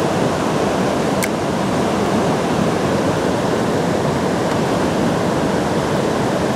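Steady rushing of river water pouring over rocks, an even, unbroken roar of whitewater.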